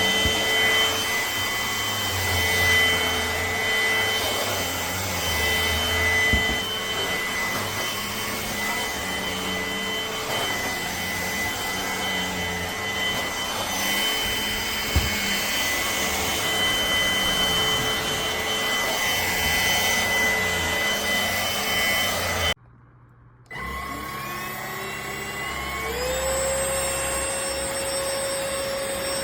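Cordless stick vacuum running steadily with a high motor whine. About three-quarters of the way through it cuts out for about a second, then starts again, its whine rising as the motor spins up and then levelling off.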